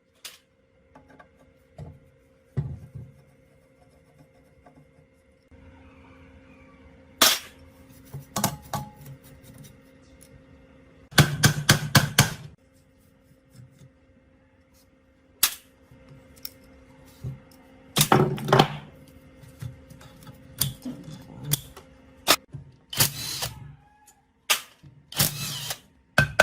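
Metal parts and hand tools clinking and knocking in irregular bursts, some of them quick rattling clusters, while an old meat grinder is worked on. A faint steady hum runs underneath.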